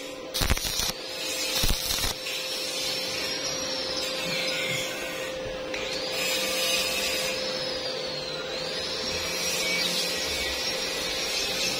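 Electric welding arc crackling in short bursts over the first two seconds, then a steady hum and hiss with faint high tones slowly rising and falling.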